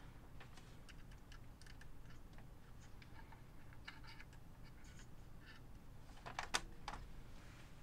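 Faint, scattered light clicks and taps from hands working the front panel and deck of a Sony EV-S9000E Hi8 video recorder, with a louder cluster of clicks about six and a half seconds in, over a faint low hum.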